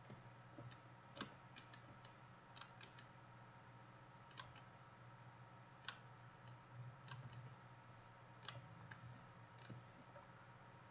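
Faint computer mouse clicks, scattered at irregular intervals, over a steady low hum.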